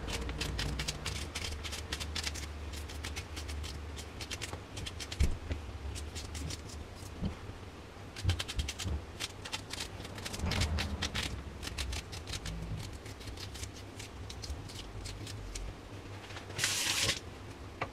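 Onion being diced in the hand with a small knife: quick runs of crisp cutting clicks as the blade cuts through the onion's layers. There is a short rushing scrape near the end.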